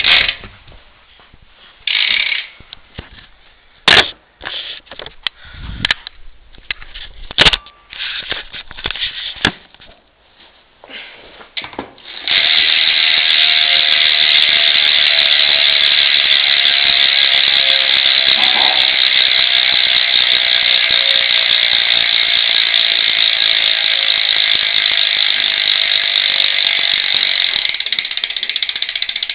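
Eastern Reaper BMX rear hub ratcheting as the wheel freewheels, a continuous, really loud buzz of rapid pawl clicks that starts about twelve seconds in and eases slightly near the end. Before that there are scattered short clicks and knocks.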